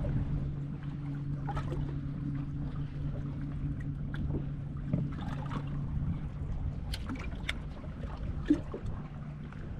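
A boat's motor running steadily with a low, even hum, with light wind noise and a few faint clicks in the second half.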